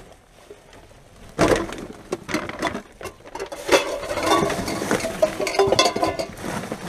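Rubbish being rummaged through by hand: plastic bin bags and packaging crinkling and rustling, with clicks and knocks of containers and bottles being shifted. It starts about a second and a half in, after a quiet moment.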